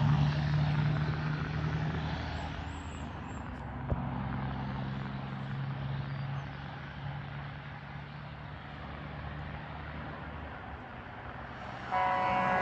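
A 2000 Kenworth W900L semi truck's diesel engine runs steadily with road and wind noise, slowly growing quieter. Near the end its Grover air horns blast in suddenly as a loud chord of several held tones.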